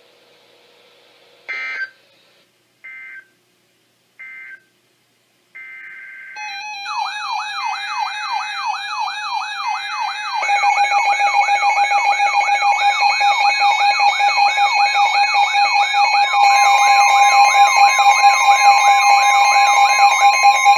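Emergency Alert System data tones on a weather radio broadcast: three short buzzy bursts, then a longer one, followed by several electronic alarm tones starting one after another. A fast, repeating rising sweep plays over steady beeping tones, and about sixteen seconds in a steady single alarm tone joins.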